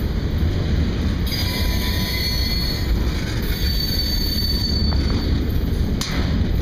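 Freight train cars rolling past close by: a steady low rumble of wheels on rail, with thin high-pitched wheel squeal coming in about a second in and wavering on. A sharp click near the end.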